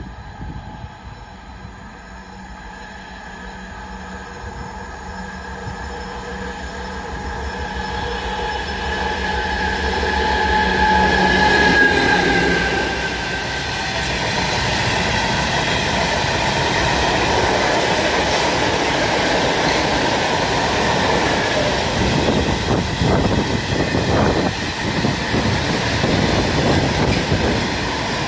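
ST44 two-stroke diesel locomotive hauling a coal train past: its engine grows louder on the approach and its tone drops in pitch as it passes about twelve seconds in. Then the loaded coal wagons roll by, rumbling, with a quick run of wheel clicks over the rail joints.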